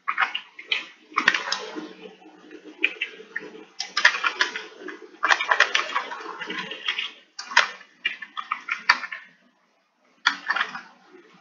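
Computer keyboard typing: rapid bursts of key clicks with short pauses between them, and one brief stop near the end.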